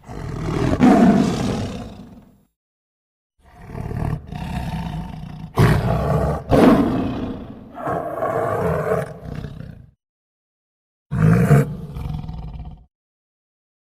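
A large wild animal roaring: a series of rough, loud roars, the first about two seconds long, then a run of several roars from about three seconds to ten, and a last short one near the end, each separated by complete silence.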